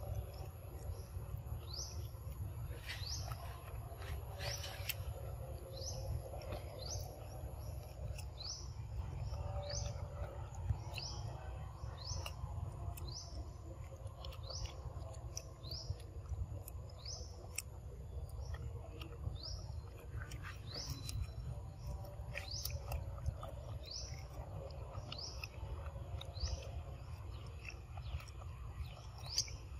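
A bird calling over and over: a short, high, falling chirp repeated about one and a half times a second, over a steady low background rumble.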